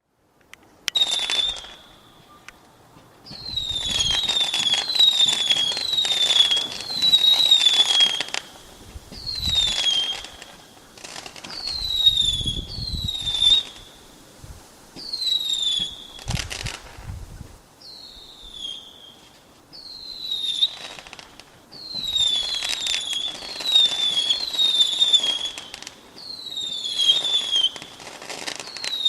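Fireworks crackling, with many short whistles that drop quickly in pitch, coming in bursts every couple of seconds, and a few deeper rumbles in between.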